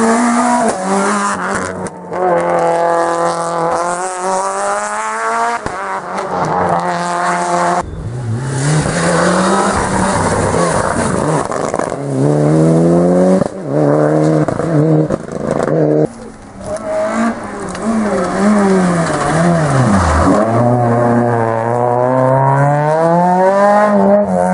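Rally cars driven flat out one after another through bends, engines revving hard: the pitch climbs through each gear and drops at shifts and lifts, every few seconds a different car.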